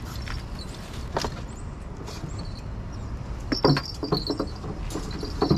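Fishing gear being packed into a car boot: a few knocks and metallic clatters as the metal rod holders and boxes are handled, over a steady low rumble.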